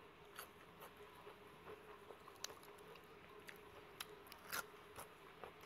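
Faint close-up eating sounds of a person chewing a mouthful of sticky rice with beef larb: irregular wet clicks and smacks, loudest a little past four seconds in, over a faint steady hum.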